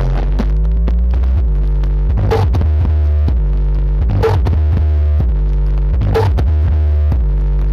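Loud, bass-heavy music from Blizzard Audio's 'horeg' parade sound system. Deep sustained bass notes sit under the music, with a sharp hit about every two seconds.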